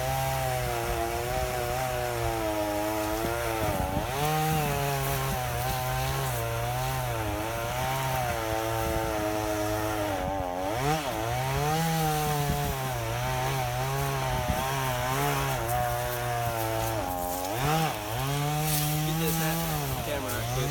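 Two-stroke chainsaw running at high revs while cutting wood, its engine note dipping sharply and recovering three times, about 4, 10 and 17 seconds in.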